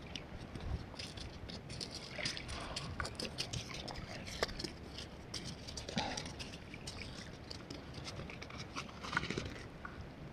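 A freshly landed mackerel flapping on shingle, giving many quick, irregular taps and rattles of pebbles.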